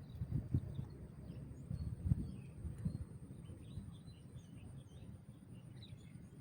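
Small birds chirping in short calls, over wind rumbling and buffeting on the microphone in uneven gusts.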